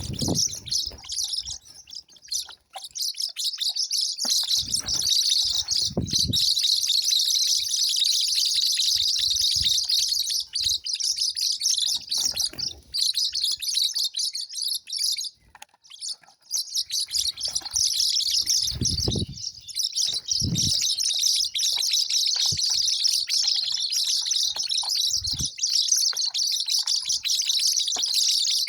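Many small birds chirping densely and almost without a break, with a short pause about halfway through. A few brief low thuds are heard now and then.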